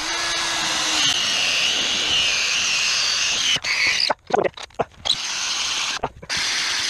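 Power drill boring into wooden wall framing: the motor runs under load for about three and a half seconds, then comes in short start-stop bursts.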